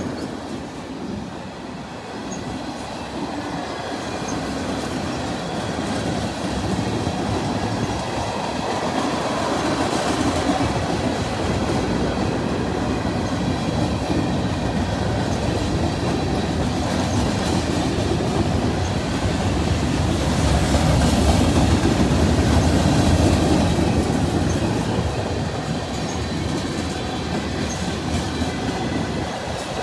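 A train's cars rolling past on the track, a steady rumble and clatter of wheels on rail that grows loudest about two-thirds of the way in.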